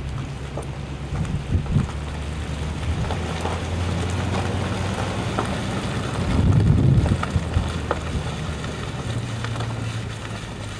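Car travelling slowly: a low, steady engine hum under tyre and wind noise coming in through an open window, swelling briefly about six seconds in.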